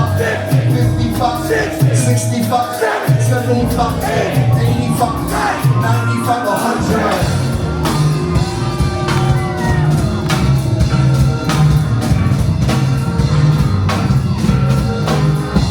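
Live band playing an instrumental passage of a rock song: a repeating bass line with drums, joined by a steady full beat about seven seconds in.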